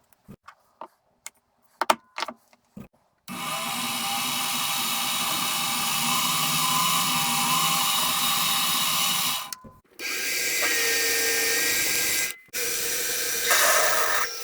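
A few light clicks and knocks, then a power drill running steadily as it bores a hole through aluminium plate. The drilling stops abruptly twice, at about ten seconds and twelve and a half seconds, and starts again.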